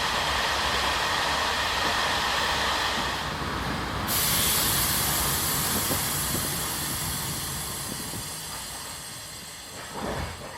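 Taiwan Railways ordinary passenger train running on the rails: a steady rushing rail noise with hiss. It turns abruptly brighter and hissier about four seconds in, then slowly fades, with a brief louder swell near the end.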